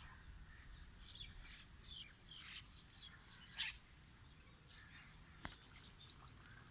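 Birds chirping faintly in a quick string of short, high calls, the loudest about three and a half seconds in.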